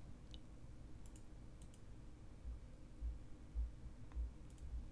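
A few faint, scattered computer mouse clicks over quiet room tone, with some soft low thumps in the second half.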